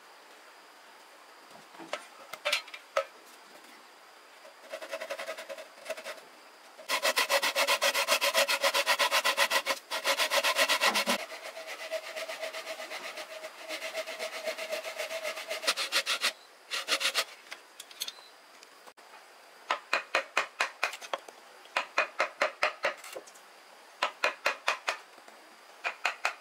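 Fast, even back-and-forth rubbing or scraping strokes in runs of several seconds: a loud run in the first half, a softer run after it, then short bursts of strokes with brief pauses between them.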